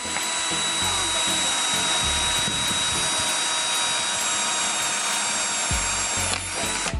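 Electric drill running at a steady high-pitched whine while boring into a plastic bottle-cap connector, then stopping about six seconds in.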